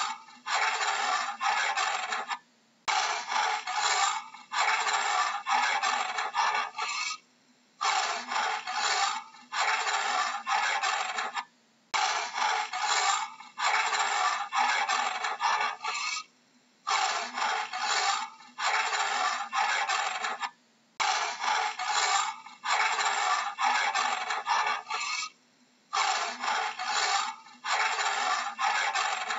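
Leopard's sawing call: runs of rasping strokes, about two a second, each run lasting a few seconds and broken by short pauses, repeating over and over.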